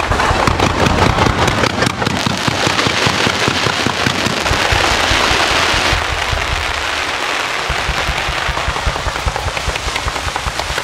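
Aerial fireworks going off in a rapid barrage: many overlapping bangs and a dense crackle, thickest over the first half and thinning after.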